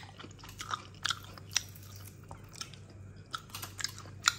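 Someone chewing a mouthful of crispy flour-coated fried chicken: irregular crunches and crackles of the fried crust, the loudest one near the end.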